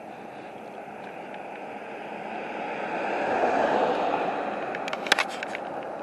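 Steady rushing outdoor noise that swells to its loudest about three to four seconds in and then eases off, followed by a few sharp clicks near the end.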